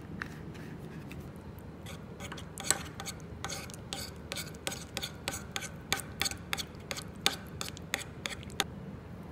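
A metal spoon stirring thick red chili-paste sauce in a ceramic bowl. From about two seconds in it scrapes and clinks against the bowl at an uneven pace of roughly two strokes a second, over a steady low hum.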